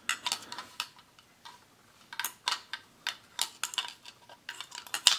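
Steel screwdriver tip clicking against the stepped plastic slot of a magnetizer/demagnetizer as it is drawn through to demagnetize it: irregular sharp clicks that turn into a denser rattle near the end.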